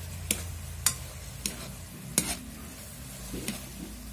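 Metal spatula stirring chicken and squid balls in a steel wok, knocking and scraping against the pan about five times at uneven intervals. The sauce sizzles low underneath, with a steady low hum.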